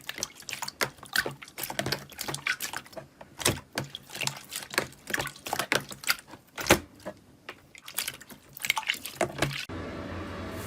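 Slime being squeezed and poked by hand, making rapid, irregular wet clicks and pops. About a second before the end it cuts off sharply and gives way to a steady hiss.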